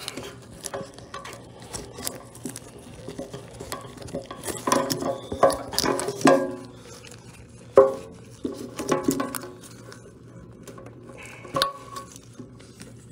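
Hands working a motorcycle fuel filter and its plastic fuel-line clips loose from a rubber mount: a run of irregular clicks, knocks and rattles, busiest in the middle, with one sharp knock a little after that.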